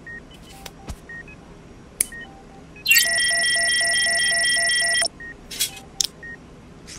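Short electronic beeps repeat softly in the background. About three seconds in, a loud steady electronic hum with fast pulsing beeps, like an X-ray scanner sound effect, runs for about two seconds and cuts off suddenly. A few small clicks and a brief hiss follow near the end.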